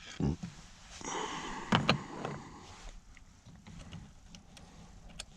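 Knocks and clicks of hard plastic car-door parts being handled. Two louder knocks with a dull thud come about a quarter second in and just under two seconds in, followed by lighter scattered ticks.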